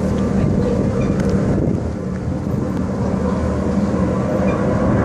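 Performance race boats' engines running at speed across the lake, a steady low hum with a few held tones.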